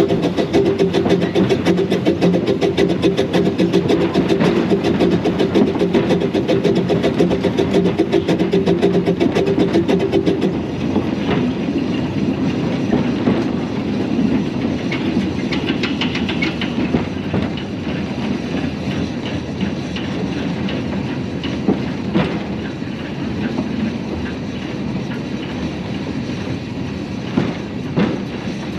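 Hunslet No 827 "Sybil", a small saddle-tank steam locomotive, running under steam with a fast, even beat for about the first ten seconds. The beat then stops and the engine rolls on more quietly, with wheels clattering on the rails and a few sharp clicks over rail joints.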